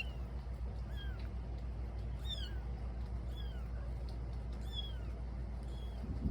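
Kittens mewing: short, high-pitched mews that slide downward, repeated about once a second.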